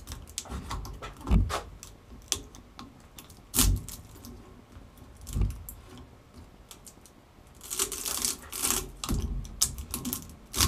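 Two screwdrivers prying copper windings out of an unvarnished electric-motor stator: scattered clicks and knocks of steel on the stator and wire, with a longer scraping, rustling stretch near the end as the wire drags out.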